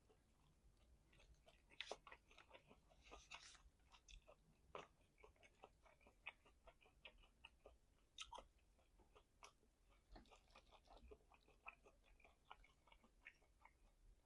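Faint, close-miked chewing of meat: a steady run of small mouth clicks, with a few louder ones now and then.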